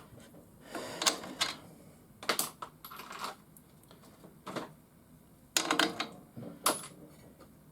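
Irregular sharp metallic clicks and clatter of hand tools and parts being handled while a garage door opener is taken apart, in about half a dozen separate bursts.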